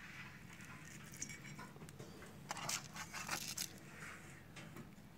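Faint crinkling and rustling of aluminium foil being handled, in scattered short bursts that cluster around the middle.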